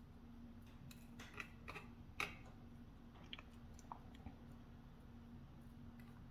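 Small, sharp clicks and taps of tiny metal lock parts being handled as a BiLock NG lock core is taken apart, bunched about a second to two seconds in with a few fainter ones after, over a faint steady hum.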